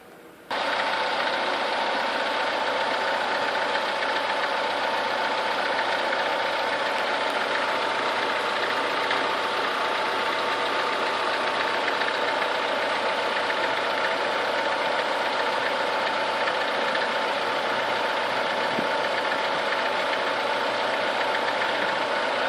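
Chevrolet Niva's four-cylinder petrol engine running steadily with a knock of unknown cause, warmed to about 70 degrees. It cuts in suddenly about half a second in.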